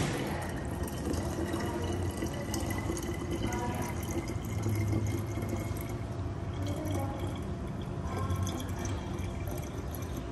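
Vanilla syrup pouring in a steady stream from a plastic pitcher through a funnel into a glass jug.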